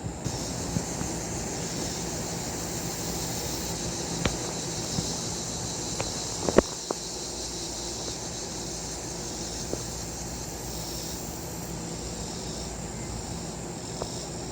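Insects chirring in a steady high band over a low, even rumble, with a few sharp clicks, the loudest about halfway through.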